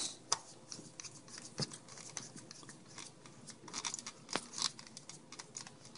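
A small screwdriver driving the last screw into a plastic computer mouse housing, with irregular sharp clicks and short scratchy scrapes of plastic being handled.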